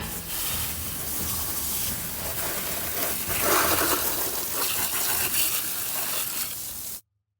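Steady rushing, hissing noise that cuts off abruptly about seven seconds in.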